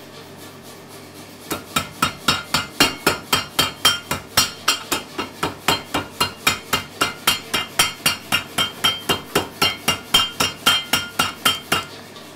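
Power hammer striking a hot steel bar in a steady run of blows, about four a second, drawing the end of a frying-pan handle down flat with a slight taper. The blows start about a second and a half in and stop shortly before the end.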